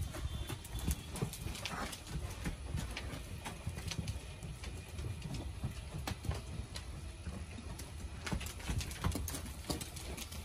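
Horses walking round a horse walker, their hooves making irregular clip-clops and knocks on the dirt track over a steady low rumble.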